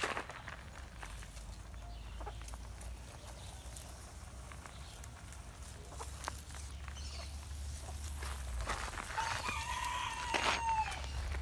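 Rooster crowing once, about nine seconds in. Before it there are only faint low rumble and scattered light clicks and rustles.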